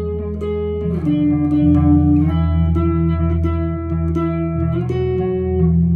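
Electric guitar being played: sustained notes and chords that change every second or so, with a slide down in pitch about a second in.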